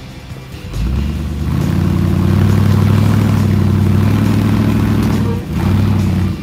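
Engine of a custom Toyota Hilux rock-crawling truggy revving under load as it climbs over rocks: it picks up about a second in, holds steady at higher revs, dips briefly near the end and picks up again.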